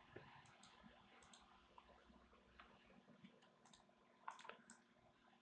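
Near silence: room tone with a few faint computer mouse clicks, the plainest about four seconds in.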